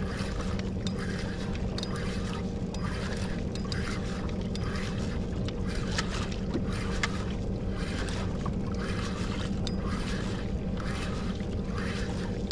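Sea water lapping against a kayak's hull with a steady low hum beneath. Soft swishes come about once a second, and there are faint scattered clicks.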